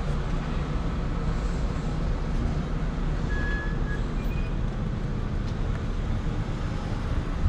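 Steady low rumble of outdoor road traffic, with a faint short high-pitched tone about three seconds in.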